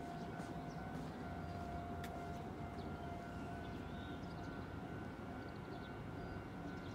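Faint outdoor ambience at a railway platform: a low rumbling background with a steady thin tone held throughout.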